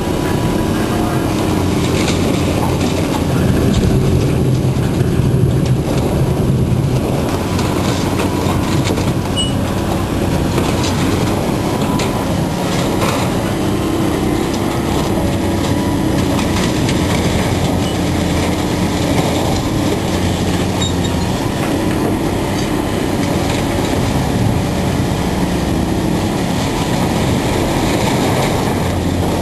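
Heavy diesel scrapyard machinery running steadily under load while it tears apart the body of an old box truck, with metal scraping, screeching and crunching.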